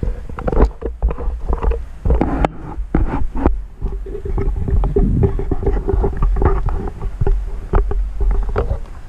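Heavy rumble of wind and handling noise on a camera microphone carried on the move, broken by irregular knocks. A steady low hum runs from about halfway through until near the end.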